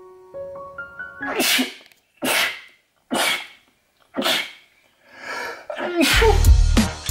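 Five short, sharp sneezes, about a second apart, after soft piano music stops. Near the end, music with a heavy bass beat starts.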